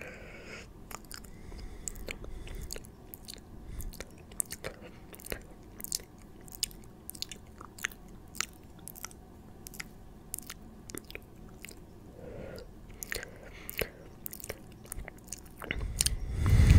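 Close-miked ASMR mouth sounds: an irregular run of wet clicks and smacks, several a second. Near the end comes a louder, low rushing sound.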